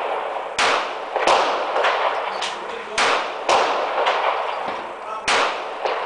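9mm handgun shots fired at an uneven pace: about five loud reports, each with a short echoing tail, with a few fainter cracks in between.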